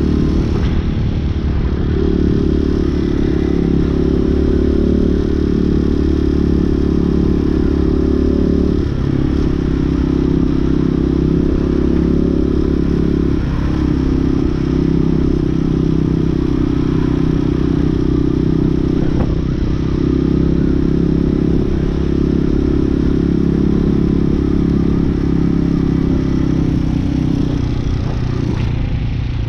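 Hawk 250 dual-sport motorcycle's single-cylinder engine running under way, its pitch breaking and resetting with several gear shifts. The valve lash has just been adjusted; the owner finds it smoother but thinks it may still be slightly off.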